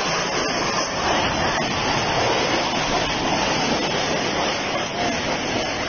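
A storm's wind making a steady, loud rushing noise with no letup.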